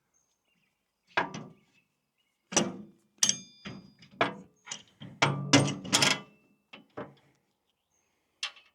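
Irregular metal knocks and clanks as the sawmill's lift-crank assembly is jammed into its mounting points, about ten in all, one about three seconds in ringing briefly.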